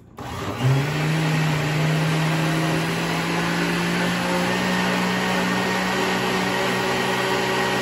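Countertop blender motor switching on, spinning up within the first second to a steady hum, mixing a jar of liquid crepe batter. It is the short 7-to-10-second blend meant to keep the batter from getting tough.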